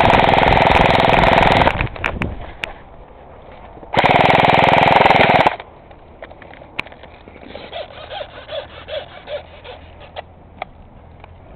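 Airsoft gun firing on full auto close by: two long, rapid bursts, the second starting about four seconds in, followed by fainter scattered clicks and snaps.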